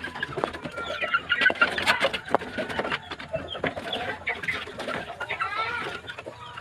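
Chickens clucking, many short calls one after another, with scattered sharp knocks among them.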